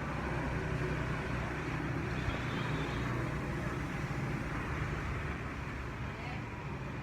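A vehicle engine running steadily with road and traffic noise, a constant low hum under an even rushing noise that eases slightly near the end.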